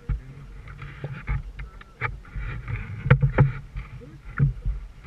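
Canoe being paddled: water splashing and swishing from the paddle strokes, with irregular sharp knocks, the loudest about three seconds in.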